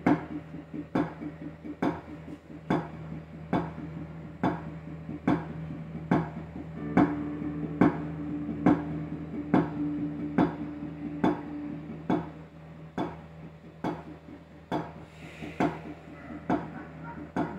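Wooden drumsticks striking a multi-pad marching tenor (quints/sextets) practice board, playing a steady beat with an accented stroke a little more than once a second and lighter strokes in between. A steady low hum runs underneath.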